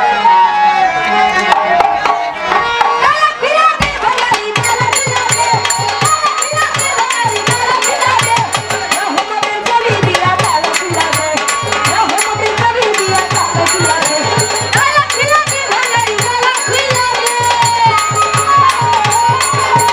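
Bengali baul folk song performed live through a PA: a woman's sung melody over hand drums. About four seconds in, a steady drum beat with quick high ticking over it kicks in.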